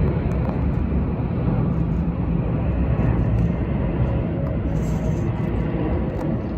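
Steady low rumble of jet airliner engines from the runways, with no distinct events.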